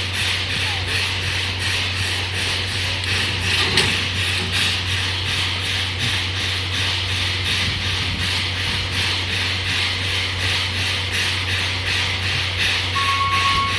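Railway turntable turning with a steam locomotive on it: a steady low hum under an even, ratchet-like clicking of about three strokes a second, with one sharper click about four seconds in and a short beep near the end.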